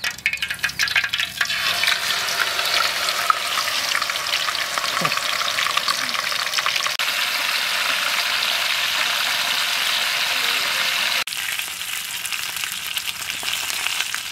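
Whole crocodile deep-frying in a pan of hot oil: crackling as it goes in, settling into a steady, loud sizzle. About eleven seconds in the sizzle breaks off and picks up again slightly quieter.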